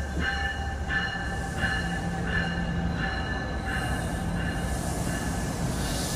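New Jersey Transit passenger train pulling out of the station: steady rumble of the train, with a ringing tone that pulses about every 0.7 seconds. A hiss of wheels on rail builds from about halfway.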